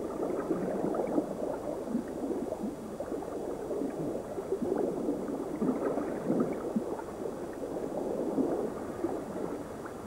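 Underwater bubbling and gurgling water sound, dense and irregular.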